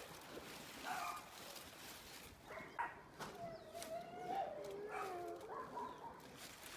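A dog whining: a few short sounds, then long wavering whines in the second half.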